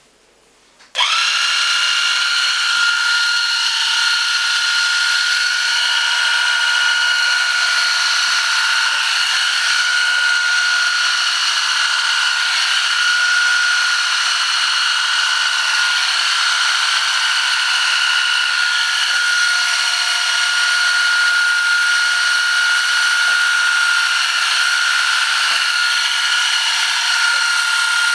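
Electric pet hair clipper switched on about a second in and running with a steady high whine as it shaves the coat off a Yorkshire terrier's back.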